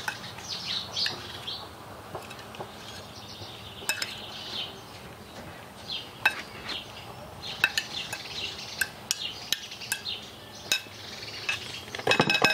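Spoon stirring a thick spinach stuffing in a bowl, scraping and clinking irregularly against the bowl. Birds chirp now and then in the background.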